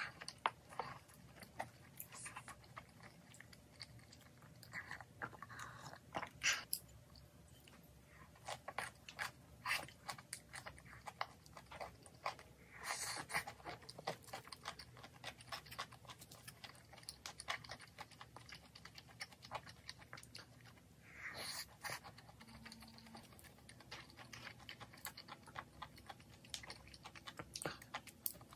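Close-up eating sounds: a person chewing ramen porridge, with chopsticks and a wooden spoon clicking against a ceramic bowl and a clay pot.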